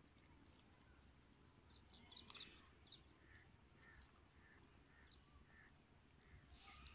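Near silence with faint outdoor ambience: a steady high insect drone, and a run of soft bird chirps about twice a second in the middle.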